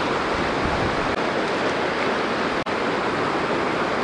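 Fast river rapids rushing steadily over rocks, close up, with a momentary break about two and a half seconds in.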